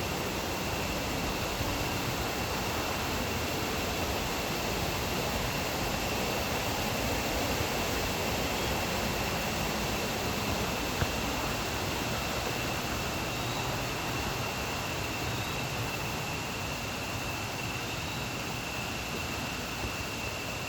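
Small stream's water flowing in a steady, even rush, with a thin, steady high-pitched tone running through it.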